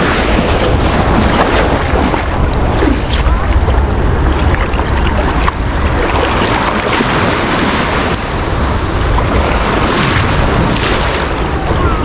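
Small ocean waves washing and swirling over shallow sand, heard from a camera held right at the waterline, with wind rumbling on the microphone.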